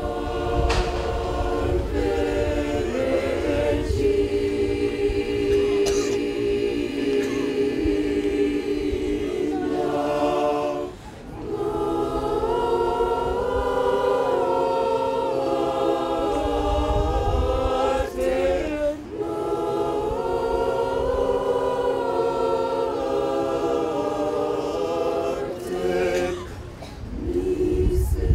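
Women's church choir singing unaccompanied in harmony, in long held phrases that break off briefly three times.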